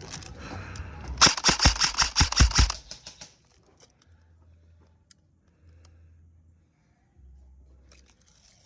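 Airsoft rifle firing a rapid string of about a dozen shots in under two seconds, starting about a second in. Faint low rumbling follows.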